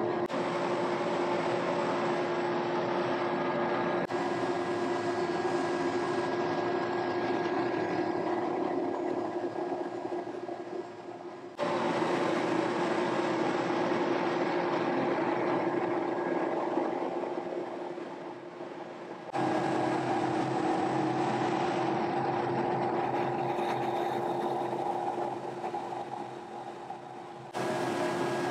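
Houfek three-head conveyor machine running steadily, a loud machine noise with a constant hum tone from its motors and moving feed belt as oak boards pass under the heads. The sound fades and returns abruptly several times.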